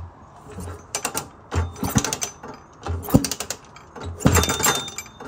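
Suzuki LT250R's rebuilt single-cylinder two-stroke engine being turned over by hand on the kickstarter, about four strokes roughly a second apart. Each stroke gives a low push against compression and a clicking of the kickstart ratchet, and the engine does not fire.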